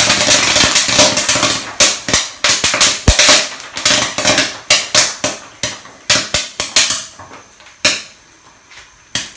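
Popcorn kernels popping in hot corn oil in an uncovered wok, with popped corn flying out and landing on the stovetop. The pops come thick and fast at first over a sizzle, then thin out to a few scattered pops in the last couple of seconds as the popping ends.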